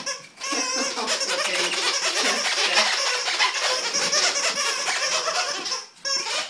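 A person laughing hard and without a break for about five seconds, stopping near the end.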